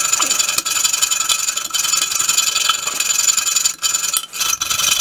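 Hacksaw cutting through the protruding end of a brass toilet closet bolt: a steady rasping with a high metallic ring, breaking up into separate strokes near the end.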